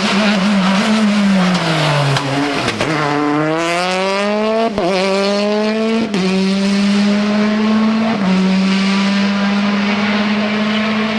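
Rally car engine on a stage: the revs drop as it slows, then it accelerates hard through the gears, with quick gear changes about five, six and eight seconds in before it holds at high revs.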